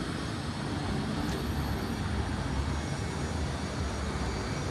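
Steady street noise: a low rumble of passing road traffic with no break or sudden sound.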